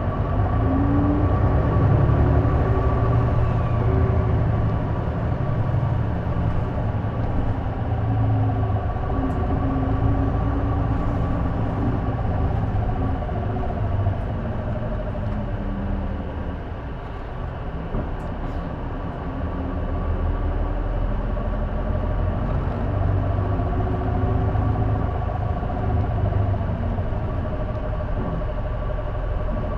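J-Bus city bus driving, its turbocharged engine rising and falling in pitch as it pulls and eases off, with a steady high tone over it. The engine eases for a few seconds in the middle. The bus makes an unexplained abnormal noise that the owner places around the exhaust or turbocharger.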